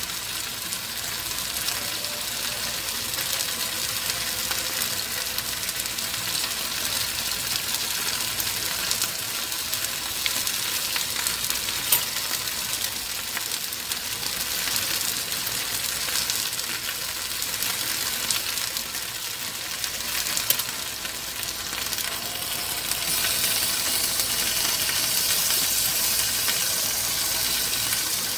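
Pan of okra stew bubbling and sizzling steadily on a gas burner, a little louder near the end, with a few sharp clicks of a utensil against the pan.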